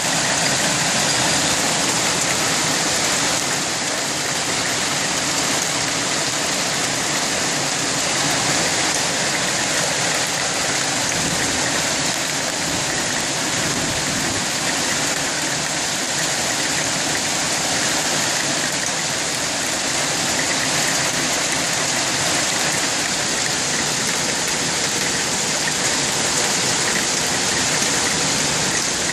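Hailstorm: hail and heavy rain falling hard on roofs, pavement and a balcony, a steady, dense rush with no let-up.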